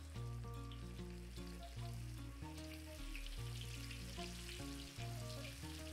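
Pieces of Nile perch deep frying in hot oil, a steady sizzle, with background music with a steady bass line playing over it.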